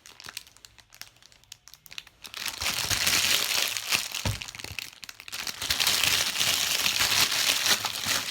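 Plastic packaging crinkling as it is handled, in two long stretches after a quiet start with a few small clicks.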